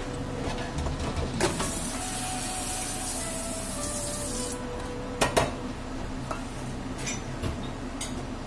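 Handling noise from a clear plastic food container as chicken skewers are lifted out of it and laid on a plate: rustling and scraping, then a few sharp knocks, the loudest a quick pair about five seconds in. A steady faint hum runs underneath.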